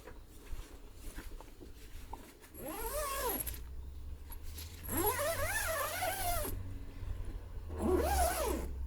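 Three drawn-out animal calls, each rising and then falling in pitch, the middle one the longest, over a steady low rumble.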